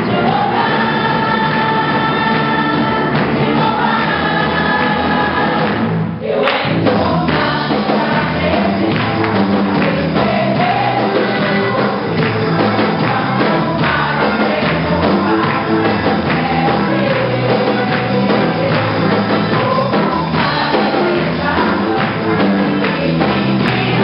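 Gospel song in Portuguese sung by a group of voices over an instrumental accompaniment with a steady beat. The voices hold long notes at first, and there is a brief break about six seconds in.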